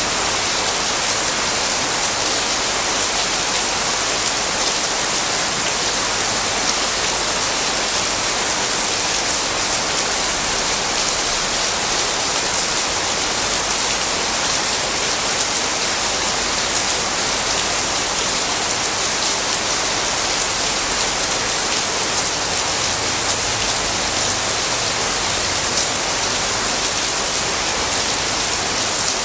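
Tropical rain falling steadily: a dense, even hiss made of many fine drop patters, with no break or change in strength.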